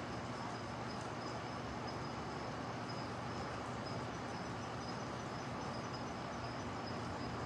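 Steady outdoor background noise, even and unbroken, with a thin continuous high-pitched tone running through it.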